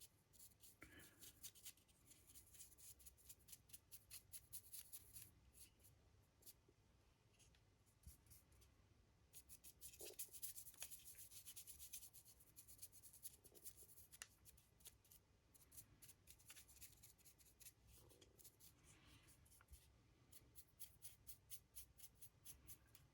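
Faint scratchy strokes of a paintbrush worked quickly back and forth over a resin miniature, coming in spells of several strokes a second, over a low steady hum.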